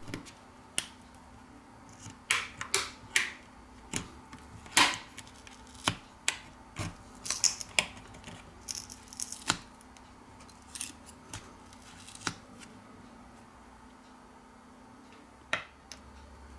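Irregular sharp clicks and taps of metal tweezers and a prying tool on a smartphone's loudspeaker module and frame as the module is pried loose and lifted out. The clicks are thick in the first ten seconds, then fewer, with a last one near the end.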